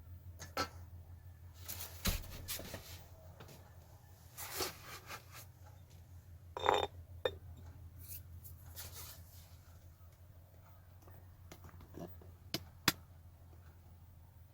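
Scattered clinks and knocks of dishes and utensils, one of them ringing briefly about seven seconds in, over a steady low hum.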